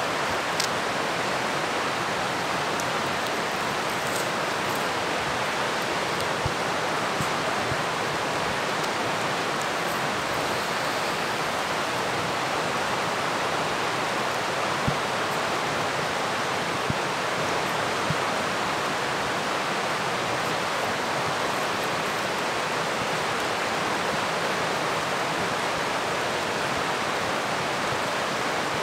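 Steady rushing of water, an even hiss that holds unchanged throughout, with a few faint ticks over it.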